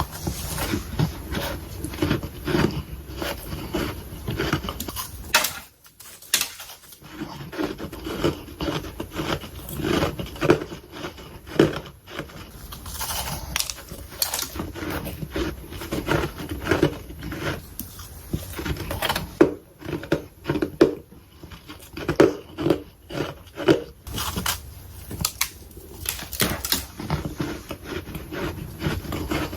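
Close-miked chewing of soft freezer frost: a steady run of quick, crackly crunches, with a brief pause about six seconds in.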